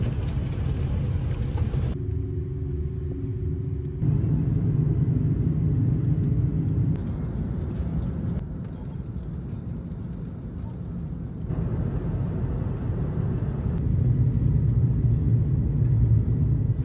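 Steady low rumble of a running vehicle, in several short clips cut together, with a humming tone in one of them.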